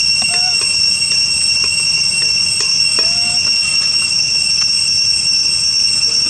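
Steady, shrill high-pitched buzzing drone of insects in the surrounding vegetation, with a few faint taps of a metal tin can being handled and a couple of short chirps.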